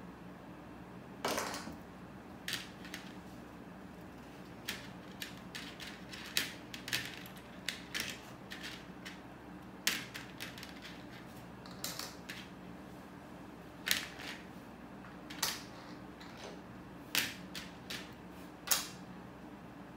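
Small plastic Lego pieces clicking and rattling as they are picked out of a plastic tray and pressed together, in irregular sharp clicks with a longer clatter about a second in.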